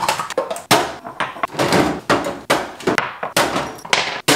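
Toiletry bottles and tubes being set down one after another on medicine-cabinet shelves: a quick, irregular series of knocks and clacks, two or three a second.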